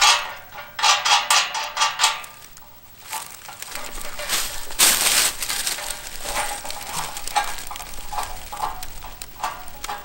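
Background music with a plucked, pulsing rhythm for about the first two seconds, then dry fallen leaves crunching and rustling, loudest in a burst about five seconds in.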